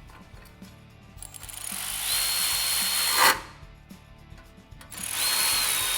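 Electric power driver running bolts in two spells of about two seconds each with a steady motor whine, likely driving the factory heat shield's Torx bolts. The first spell ends in a short sharp crack as the tool stops.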